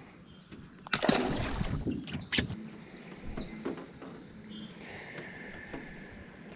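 A splash about a second in as a smallmouth bass is dropped back into the water beside an aluminium boat, followed by a few sharp knocks. After that, songbirds chirp and sing from the riverbank.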